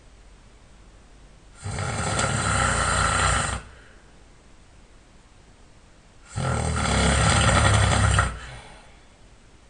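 A sleeping person snoring loudly: two long, rasping snores of about two seconds each, roughly five seconds apart, with quiet pauses between.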